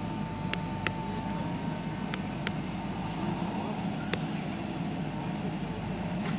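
JCB 3DX backhoe loader's diesel engine running steadily while it works, with about five sharp metallic knocks spread through it and a thin whine that fades out about a second and a half in.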